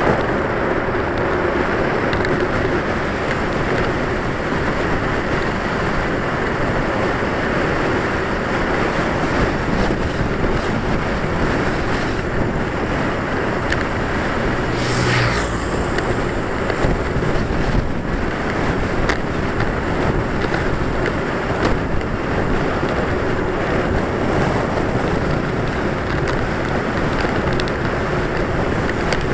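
Steady rushing wind noise on a bicycle-mounted camera's microphone while riding along a paved road, with a brief louder hiss about halfway through.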